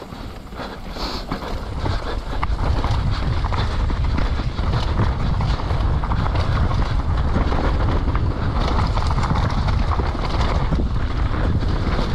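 Downhill mountain bike descending a dirt trail at speed: wind buffeting the camera microphone over the rumble of knobby tyres and a steady clatter of chain and suspension on rough ground. It grows louder over the first couple of seconds as the bike picks up speed, then stays loud.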